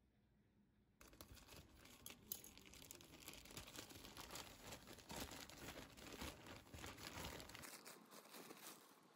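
Grey plastic courier mailer bag crinkling and rustling as hands pull it open, with many small crackles; it starts about a second in and eases off near the end.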